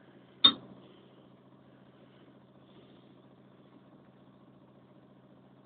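A faint, steady low hum from the ship's engine, with one sharp knock about half a second in.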